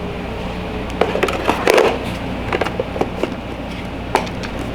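Scattered plastic clicks and light knocks of a robot vacuum's dustbin being handled, bunched about a second in and recurring up to near the end, over a steady low hum.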